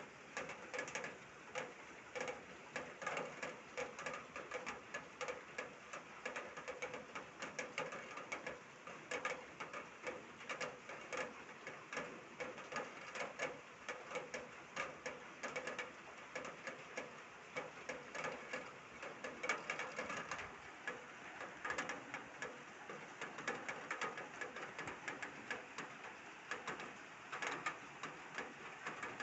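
Downpour of rain, with dense drops tapping quickly and irregularly on a hard surface.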